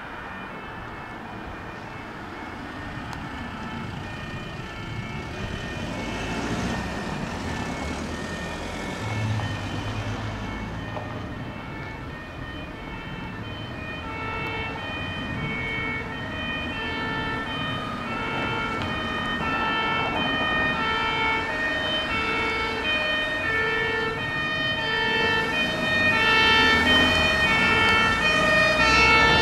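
German fire engine two-tone horn (Martinhorn) sounding, alternating between a high and a low note, growing steadily louder as it approaches, over the noise of vehicle engines and road.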